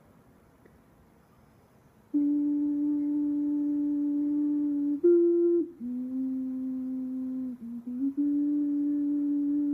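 Ocarina playing clear, nearly pure notes. About two seconds in, a note starts and is held for roughly three seconds. A short higher note follows, then a lower one, then the first note again.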